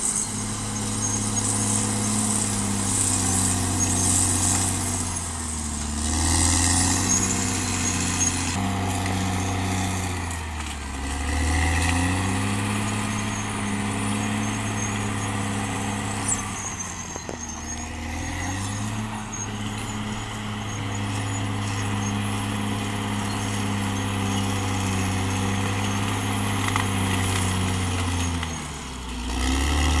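Caterpillar D6R XL bulldozer's diesel engine running steadily as the dozer works, its pitch dropping and picking up again three times.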